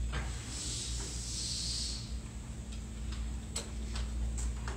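Repair-shop background noise: a steady low hum, a hiss lasting about a second and a half near the start, and a few scattered light clicks.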